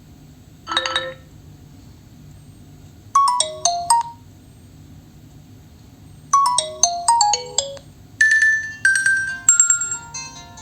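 Nokia 3.4 smartphone playing a ringtone melody through its loudspeaker: a short chord under a second in, then the same short descending phrase of notes twice, and from about eight seconds in a higher, brighter run of notes.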